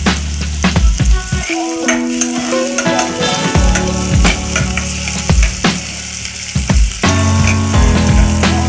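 Sliced onions sizzling in oil in a frying pan as a spatula stirs them, over background music with a steady beat.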